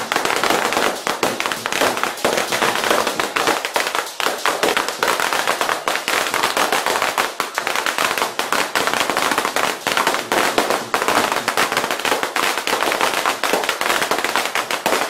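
A hanging string of firecrackers going off in a long, rapid, unbroken crackle of bangs.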